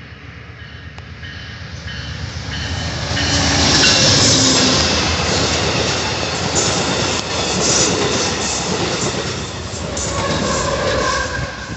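Amtrak passenger train passing at speed. A rushing roar of wheels and air swells as it approaches and is loudest about four seconds in, then the cars clatter over the rail joints in quick regular clicks as they go by.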